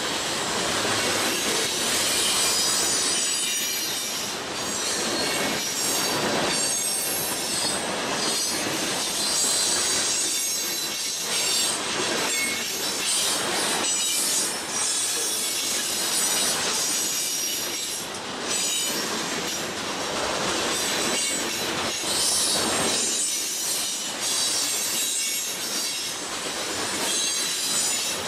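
Freight cars rolling past at close range: steady wheel-on-rail rumble and rattle, with high-pitched wheel squeal and scattered wheel clicks. The cars are centerbeam flatcars loaded with wrapped lumber, a boxcar and tank cars.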